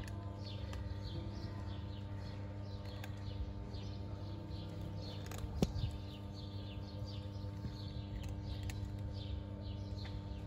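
Small birds chirping over and over, each call a short falling chirp, over a steady low hum, with a few sharp clicks, the loudest about halfway through.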